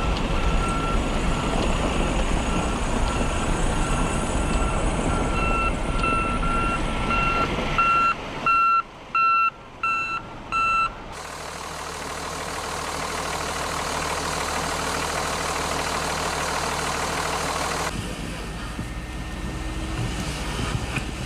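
A heavy vehicle's reversing alarm beeping repeatedly over a low engine rumble, the beeps getting louder and more distinct until they stop about eleven seconds in. After that there is only a steady engine and wind rumble.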